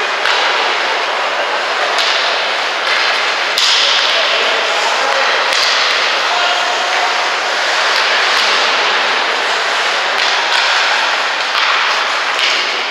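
Ice hockey play heard from rinkside: a steady hiss of skate blades on the ice, broken by about ten sharp clacks of sticks and puck.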